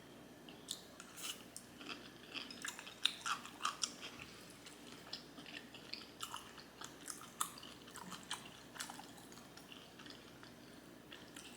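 Close-miked chewing: a person eating, with soft wet mouth clicks and lip smacks at irregular intervals.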